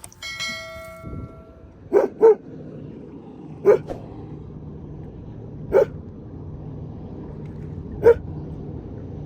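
A dog barking five times, a quick double bark about two seconds in and then single barks spaced two seconds apart, over a steady low hum. A ringing, chime-like tone fades out at the start.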